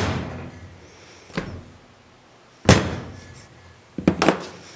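Heavy metal bandsaw vise parts and an Allen key being handled on a metal tray: a light knock, then a loud clank about two-thirds of the way in with a short ringing tail, and two quick knocks near the end.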